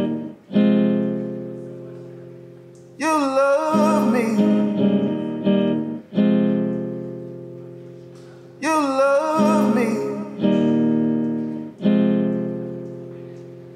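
Acoustic guitar strummed in slow chords, six in all, each left to ring out, while a man sings two long wavering notes over them.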